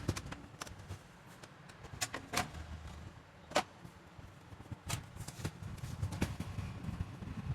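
Irregular light clicks and knocks, about six spread over several seconds, over a low rumble.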